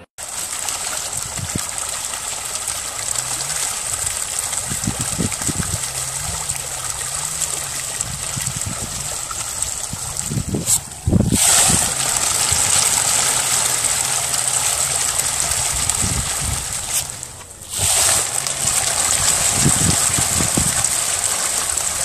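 Steady splashing and churning of water as a dense mass of fish thrashes at a pond's surface. The sound dips briefly twice.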